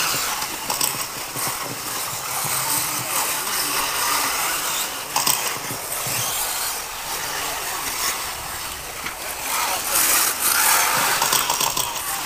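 1/8-scale electric off-road RC buggies racing on a dirt track: a steady high hiss of electric motors and tyres, with a few brief clattering knocks.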